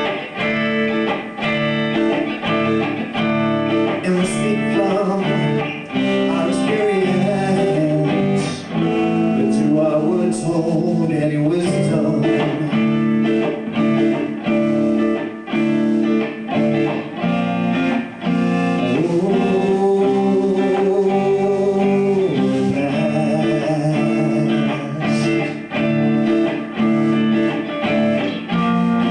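Live band music: electric guitar and bass over a drum kit, playing without pause.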